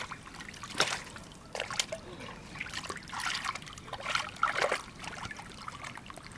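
Water splashing and trickling in irregular bursts, four or five splashes a second or so apart over a faint steady trickle.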